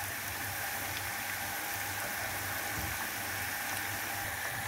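Cornflour-and-egg-coated red snapper slices deep-frying in a pan of hot oil: a steady, even sizzle and bubbling as the coating turns crisp.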